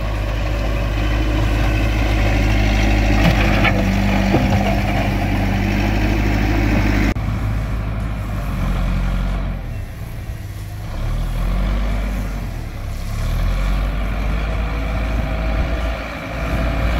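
Heavy earthmoving machine's diesel engine running under load as it grades a dirt road. The sound changes abruptly about seven seconds in, then rises and falls.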